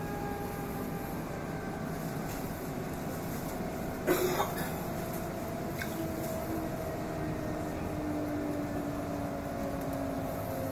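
Steady hum and noise inside an EP2D electric train carriage, with a faint falling tone near the end and a brief sharp noise about four seconds in.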